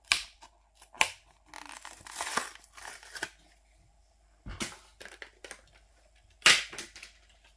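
Plastic blister packaging of a diecast model car being cracked and torn open by hand. Sharp snaps near the start and about a second in are followed by a couple of seconds of crinkling and tearing, then two more single snaps further on.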